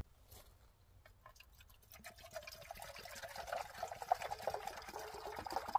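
Water pouring from a plastic bottle into a titanium camping cup, a steady splashing trickle that starts about two seconds in, after a few faint clicks.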